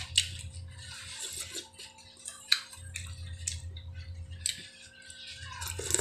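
Close-up wet eating sounds of a person slurping and chewing spicy Korean chicken noodle soup: irregular short smacks and slurps, with a sharp click about two and a half seconds in.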